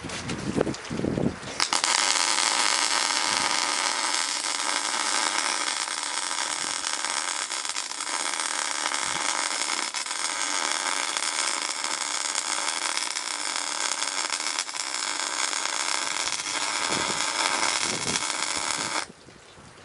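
Electric arc welder running a long continuous bead on the steel snow pusher blade, a steady frying crackle that starts about two seconds in and cuts off sharply near the end as the arc is broken.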